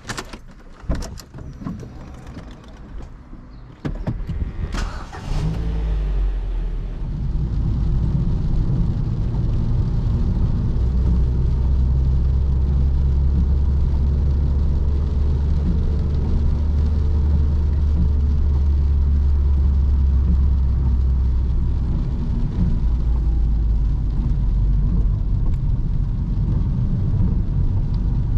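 Ford Focus 1.6-litre 100 hp petrol engine starting about five seconds in, after a few clicks and knocks, then running steadily.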